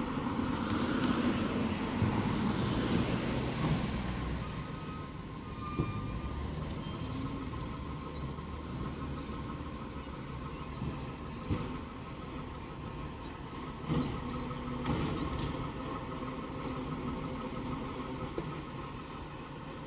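Garbage truck engine running steadily, with a hiss in the first few seconds and several sharp knocks later on.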